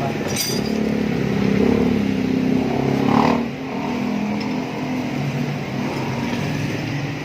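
Suzuki Raider 150 single-cylinder four-stroke engine running through a swapped-in stock canister muffler, revving up briefly about three seconds in and settling back.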